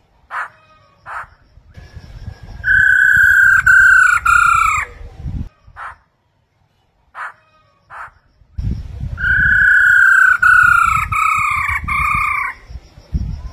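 Black-throated laughingthrushes calling: a few short separate notes, then two loud runs of several linked whistled notes, each note falling slightly in pitch, starting about 3 s and 9 s in. A low rumble sits under the loud runs.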